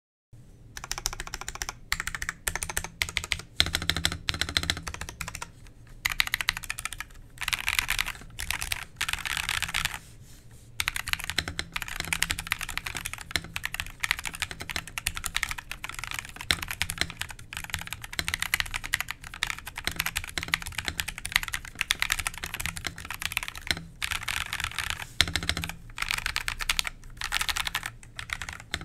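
Feker IK75 75% mechanical keyboard being typed on quickly with both hands: a dense run of key clacks in bursts, broken by short pauses, the longest about ten seconds in.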